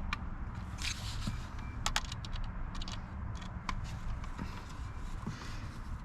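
Scattered sharp plastic clicks and light scraping as a power window master switch is handled and fitted into its bracket in the door panel, over a low steady background rumble.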